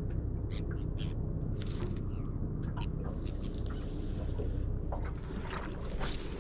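Steady low rumble with scattered light clicks and taps from handling a spinning rod and reel in a small aluminium boat.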